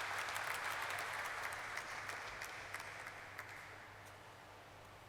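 Audience applauding, the clapping thinning out and fading away about three to four seconds in, over a faint steady low hum.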